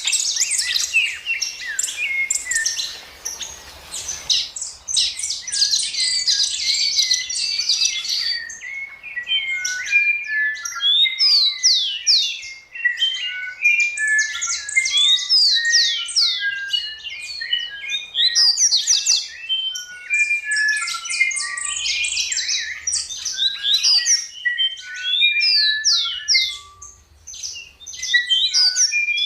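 Songbirds singing: a dense, continuous run of rapid chirps and short whistled notes, some sweeping down in pitch, with brief lulls.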